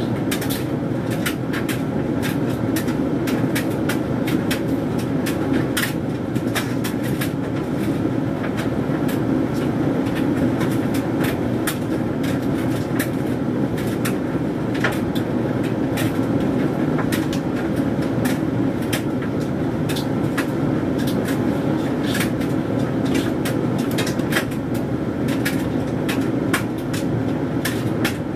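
Hoover Dynamic Mega 10kg condenser tumble dryer running: a steady hum from the motor and turning drum, with irregular clicks and taps as the load of synthetics tumbles.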